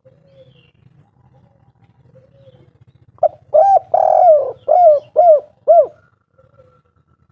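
Spotted dove (derkuku) singing one loud cooing phrase: two short notes, a long drawn note, then three short evenly spaced 'kuk' notes. This is the 'kuk 3' song type.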